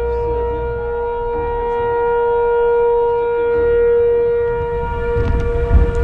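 Pole-mounted outdoor tornado warning siren sounding one long steady wail, held at a constant pitch. It signals a tornado warning for the approaching supercell. A gusty low rumble rises near the end.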